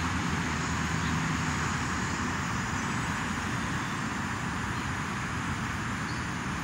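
Steady background noise of road traffic, an even rumble and hiss with no distinct events.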